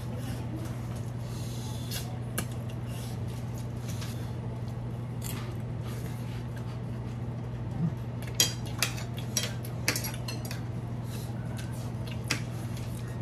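Spoons and forks clinking and scraping against ceramic plates and bowls during a meal, with a run of sharper clinks between about eight and ten seconds in, over a steady low hum.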